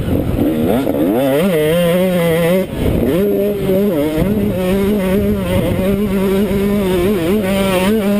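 KTM SX 125 two-stroke single-cylinder motocross engine revving hard under way, heard through a helmet-mounted camera with wind noise. The pitch climbs steeply in the first second or so, cuts briefly just under three seconds in, then holds high with small throttle wobbles.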